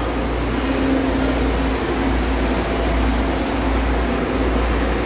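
Steady low rumble and hum inside a Blue Line subway car arriving at a station, with a faint steady tone through the middle.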